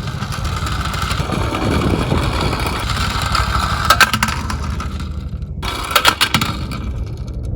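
Die-cast Tomica police minicar rolling down a toy slope: a steady rattling rumble of its wheels, with sharp clicks about four seconds and six seconds in.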